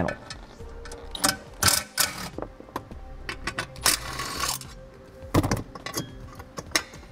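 Milwaukee cordless driver with a socket running in short bursts as it backs out 10 mm bolts from a metal dash panel, mixed with sharp clicks and clatter of the metal panel and bolts being handled. The longest run of the driver comes about four seconds in.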